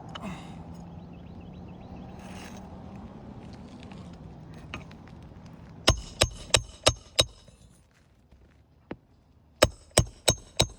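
Hammer driving roofing nails into asphalt shingles: a run of five quick, ringing metal strikes about halfway through, a single lighter tap, then four more strikes near the end. A low steady hum runs under the first half.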